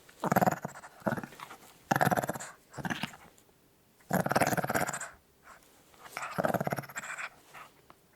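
A small dog growling in a string of rasping growls, each half a second to a second long, with short pauses between them.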